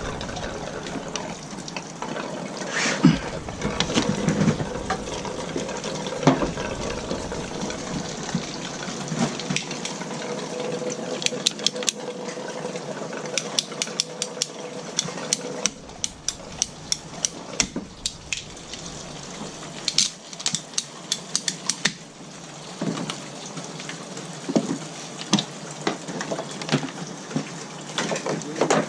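Water running steadily from the disconnected water heater plumbing. Bursts of quick, sharp clicks and taps come and go over it, thickest in the middle.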